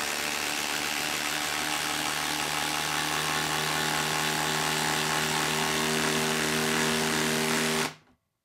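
Milwaukee M18 Fuel 2853-20 impact driver, fitted with a half-inch anvil, hammering steadily as it drives a 6-inch lag screw into a wooden stump. It stops abruptly near the end, with the lag nearly driven home.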